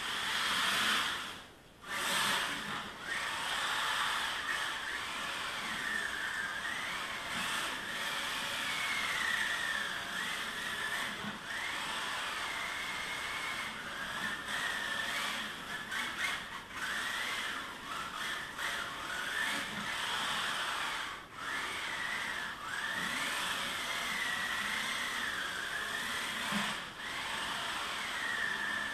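Electric motor and gears of a 1:24 scale mini 4WD RC truggy whining, the pitch rising and falling as the throttle is worked, over a hiss from its taped tyres sliding. The whine drops away briefly a few times when the throttle is let off.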